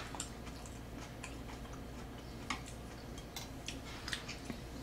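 Scattered soft clicks of chopsticks picking tteokbokki from a metal tray, with quiet chewing, at irregular intervals.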